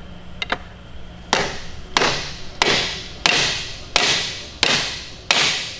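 Hammer blows on a piston in a seized Audi 3.0T supercharged V6 block: seven strikes about two-thirds of a second apart, each ringing out briefly, after a couple of light clicks. The engine is seized solid from oil sludge and a spun main bearing.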